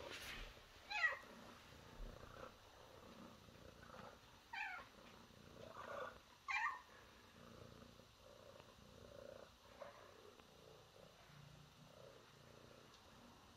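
Domestic cat giving short trilling calls that fall in pitch, three of them: about a second in, then near five and near seven seconds.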